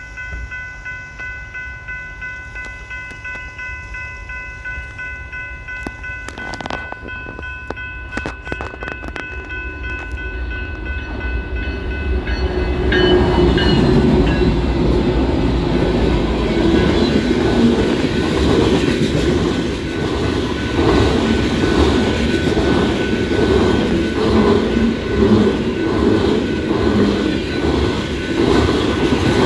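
BNSF freight train approaching and passing. A steady chord of horn tones holds for the first dozen seconds. About 13 seconds in, the diesel locomotive goes by with a loud rumble, followed by the rhythmic clickety-clack of tank car wheels over rail joints.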